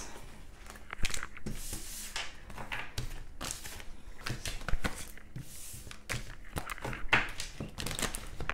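Tarot cards being shuffled and handled by hand: a steady run of quick taps and clicks with a few brief papery swishes.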